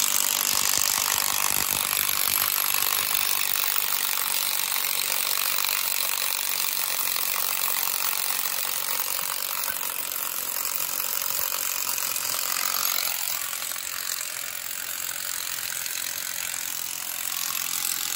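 Cordless impact wrench hammering steadily as it spins the rocker arm nuts off a small-block Chevy 350, easing a little about thirteen seconds in.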